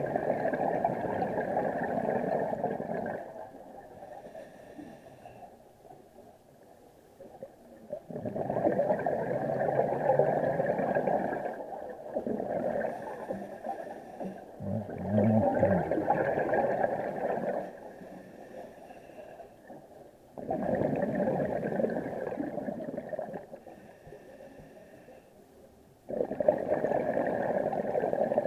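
Scuba diver breathing through a regulator underwater: five gurgling rushes of exhaled bubbles, each lasting a few seconds, with quieter inhalations between.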